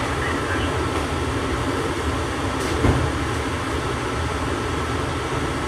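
Steady hum and low rumble inside an AirTrain JFK people-mover car standing at a station platform, with one brief thump about three seconds in.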